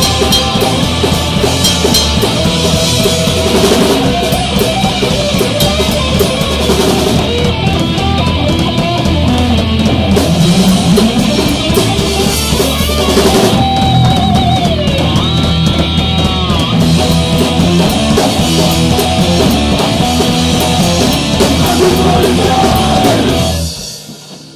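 Punk rock band playing loud and fast, with distorted electric guitar and a drum kit, in a rehearsal recording. The music dies away quickly near the end as the song finishes.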